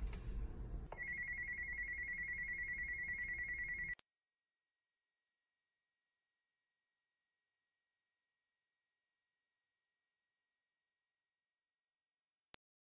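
Electronic tones given to a handheld walkie-talkie: first a rapid trilling beep for about three seconds, then a piercing high-pitched steady tone. The tone swells up, holds loud for about eight seconds and cuts off abruptly.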